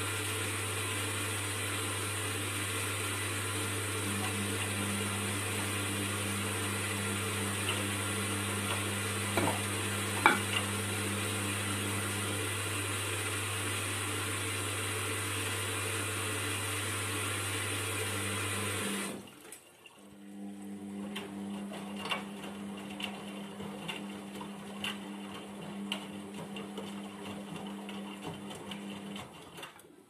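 Indesit IWUC 40851 front-loading washing machine in the wash phase of its cotton intensive 40° programme, its motor turning the drum of wet laundry with a steady hum. About two-thirds of the way through the drum stops for a moment. It then starts turning again with a quieter, lower hum and light sloshing and clicking of the tumbling wash.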